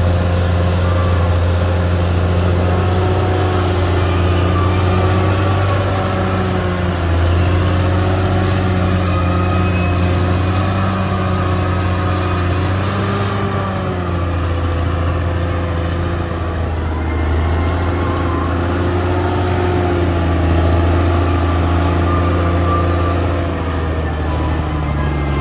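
Caterpillar D6R XL bulldozer's diesel engine running steadily, its pitch rising and falling slightly.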